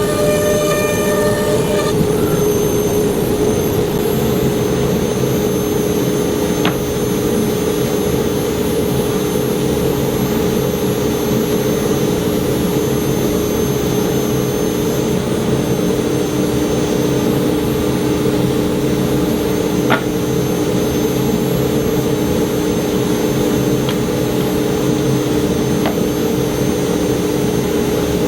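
CNC router running steadily, its spindle cutting slots into walnut blanks held in a fixture. Two faint clicks come through, about a quarter of the way in and again past the middle.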